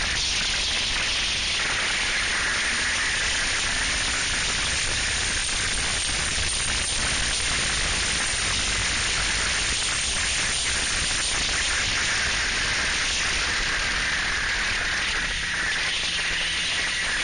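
Steady rushing hiss of wind and motion noise on the microphone of a snowmobile riding at speed over snow, with the sled's engine faint beneath it.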